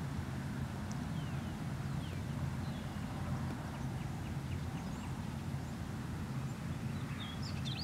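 Steady low rumble with faint, scattered bird chirps over it, a few more of them near the end.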